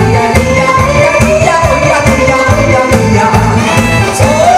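A man sings a Korean trot song into a microphone, amplified through the PA over a musical accompaniment with a steady beat.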